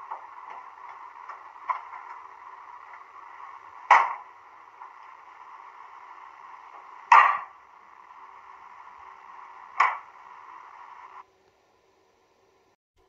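Door-closing sound effect (decoder function F16) from the sound decoder of a Roco model DB class 218 diesel locomotive, played through the model's small speaker. Three loud door slams come about three seconds apart over a steady hiss, with a lighter knock early on, and it all cuts off suddenly about eleven seconds in.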